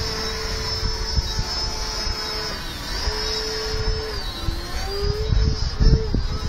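Small drone's motors and propellers humming in flight, the pitch dipping and gliding back up about halfway through as it changes speed. Wind rumbles on the microphone underneath.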